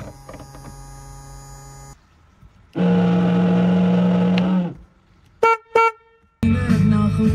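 Electric boat horn worked from the dash switch panel: one long blast of about two seconds, then two short toots. A faint steady hum comes before it, and music starts near the end.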